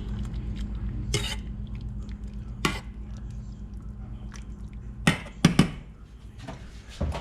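Dishes and utensils clinking and knocking in a small room, a few separate clatters about a second in, near three seconds and twice around five and a half seconds, over a steady low hum.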